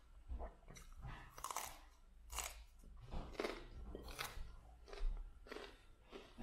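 A person chewing raw broccoli, crisp crunches coming irregularly about one or two a second.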